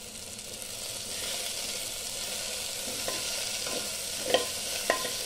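Broad bean and potato curry sizzling in a pan while a steel spoon stirs spice powder through it. The sizzle grows louder about a second in, and there are a few sharp clinks of the spoon against the pan near the end.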